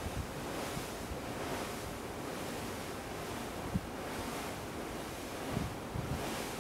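Steady rush of wind and sea water along a ship at sea, swelling and fading about once a second, with a few short low thumps of wind buffeting the microphone.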